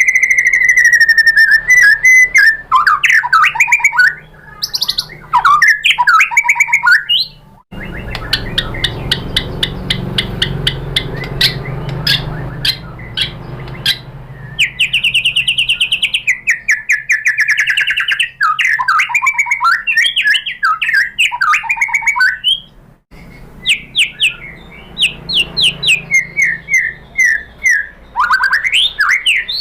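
White-rumped shama singing a loud, varied song: clear whistles, rapid trills and harsh chattering phrases, with long runs of fast repeated clicking notes. The song breaks off briefly twice.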